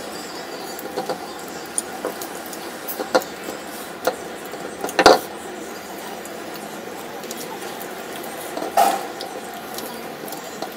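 Someone eating fried chicken and rice by hand from a wooden plate. Fingers click and rustle against the crispy food and the plate, with a sharper knock about halfway through and another small clatter near the end.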